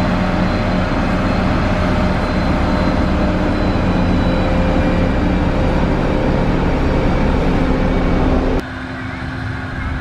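SANY motor grader's diesel engine running steadily under load as its blade pushes and spreads gravel, with a scraping, crunching noise under the engine. Near the end the sound drops suddenly to a quieter, steadier engine hum.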